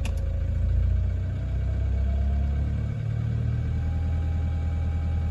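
Cold diesel engine idling, its idle speed rising gently from just under to just over 1,000 rpm as the idle-up engages. A brief click sounds at the very start.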